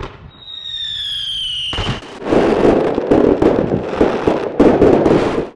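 Fireworks sound effect: a whistling firework with a slowly falling pitch for nearly two seconds, then a long, dense run of crackling bangs that cuts off suddenly.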